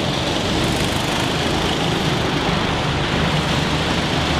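Go-kart engines running steadily on an indoor track, a continuous loud drone that fills the big hall.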